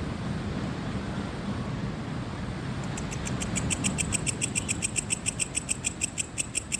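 A cricket chirping in a rapid, even pulse train of about eight high-pitched chirps a second. It starts about three seconds in and cuts off abruptly near the end, over a steady rushing of ocean surf and wind.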